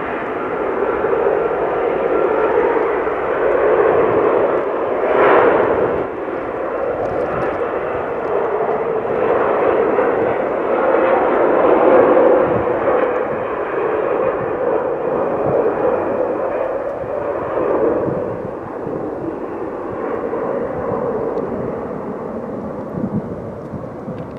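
Airliner engines running loud, a steady noise that peaks around the middle and slowly fades over the last few seconds.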